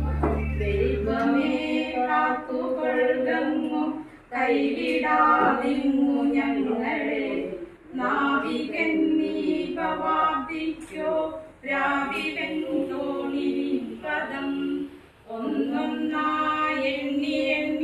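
A group singing unaccompanied, several voices together in slow phrases of about four seconds each, with short breaths between them.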